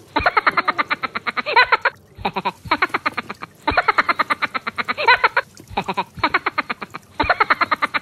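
Rapid croak-like pulses, about ten a second, in phrases of one to two seconds separated by short breaks. The pattern repeats evenly, like a looped frog-croak background track.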